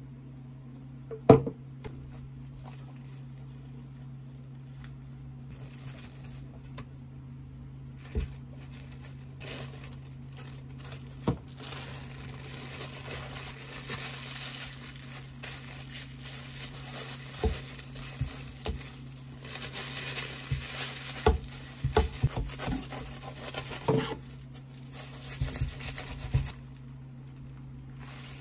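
Plastic wrap crinkling and rustling as a sandwich is wrapped tightly by hand, with scattered small clicks. A sharp knock about a second in is the loudest sound, with a few more knocks after it, all over a steady low hum.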